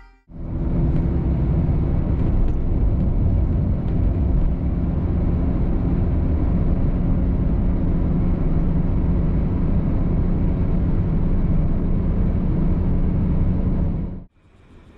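Small boat motor running at a steady speed, a low hum over rumble, stopping abruptly near the end.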